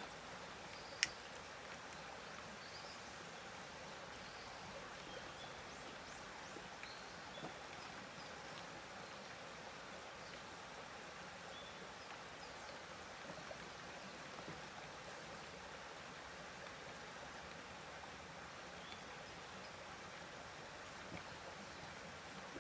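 Dead-pine wood fire burning: a faint steady hiss with scattered small crackles and one sharp pop about a second in.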